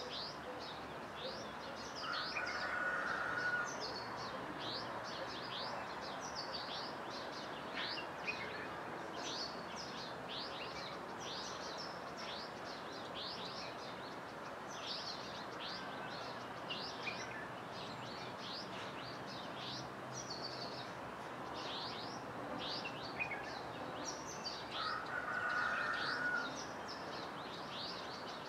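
Birds chirping at sunrise: many short, high, falling chirps repeat throughout over steady background noise. Twice, about two seconds in and again near the end, a lower and louder sound lasts about a second and a half.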